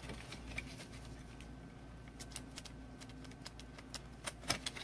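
Faint, scattered light clicks and taps, a few at a time with pauses between, like small hard objects handled on a desk.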